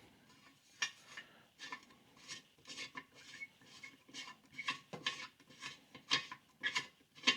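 Steel threaded fitting being screwed by hand into a stainless exhaust pipe's sensor bung: short, irregular metallic scrapes and clicks, roughly two a second, as the threads turn and the hand regrips.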